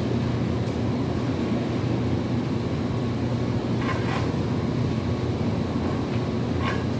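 Steady low rumble with a few light knocks or clicks: one about a second in, a couple around four seconds in and one near the end.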